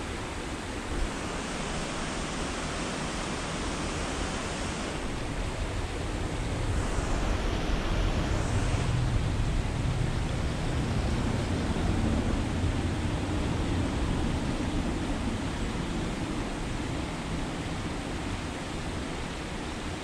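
Wind blowing on the microphone: a steady rushing with a low, gusty rumble that swells about six seconds in and eases off towards the end.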